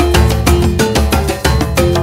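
Upbeat background music with a quick, steady percussion beat under held melodic notes.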